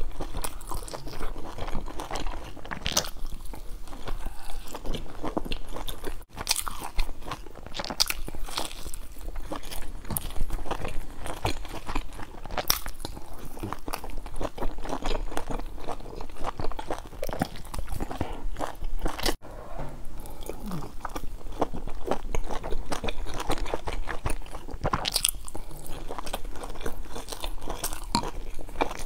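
Close-miked biting and chewing of large pan-fried stuffed buns: a continuous run of sharp clicks and mouth sounds, broken twice by a brief dropout.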